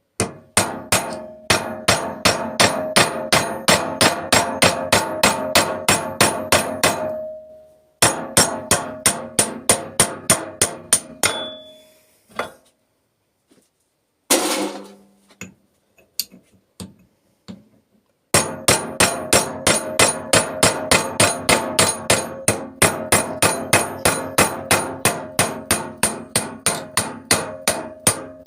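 Hammer striking a punch to drive metal slats out of a piece held loosely in a vise, in steady runs of about three ringing metal blows a second. The hammering pauses twice, with one lone blow in the longer gap.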